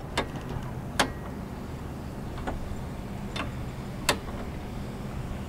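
About five sharp, irregularly spaced clicks of a hand tool working on metal rigging fittings at the bowsprit end, with a low steady hum underneath.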